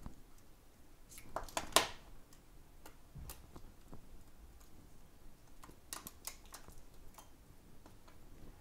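Light clicks and taps of metal tweezers and small parts inside an opened iPhone 8 as its logic board is freed and lifted out. There is a quick cluster of sharp clicks between one and two seconds in, and another around six seconds in.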